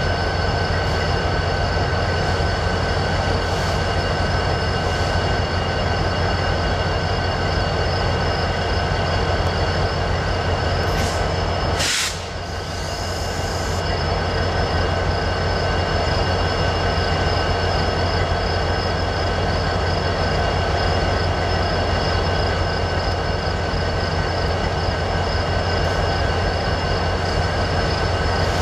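Diesel freight locomotives standing at idle: a steady low engine rumble with a constant high-pitched whine over it. About twelve seconds in, a sharp crack is followed by a short hiss.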